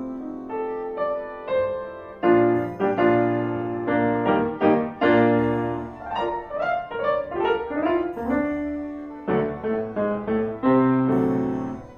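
Silent-film piano accompaniment: a piano playing a brisk tune of quick single notes and chords.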